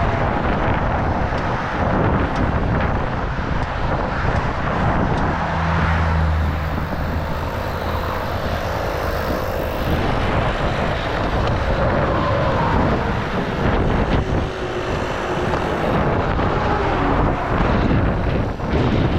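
Highway traffic passing close by at speed: a steady rush of tyres and engines. A deeper engine drone stands out for a few seconds around a third of the way in.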